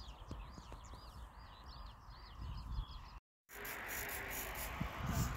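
Rural outdoor ambience with a high chirping call repeated several times a second, which cuts off abruptly about three seconds in. After a brief silence, wind rushes and buffets on the microphone.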